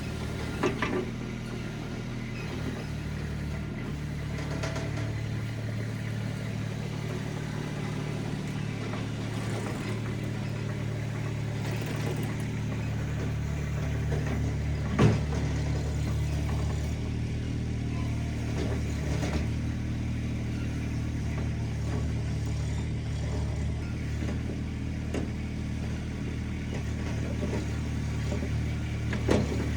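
RIPPA RS06 mini skid steer's engine running steadily at work, its pitch stepping up and down as throttle and load change. A few sharp knocks stand out, the loudest about halfway through.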